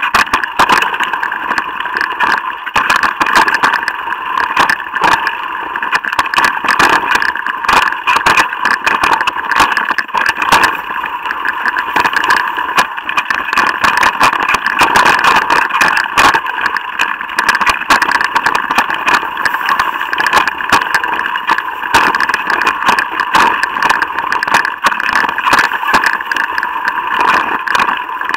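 E-mountain bike rolling fast down a dirt forest trail: a steady rushing rattle with frequent knocks and clatters from bumps in the trail.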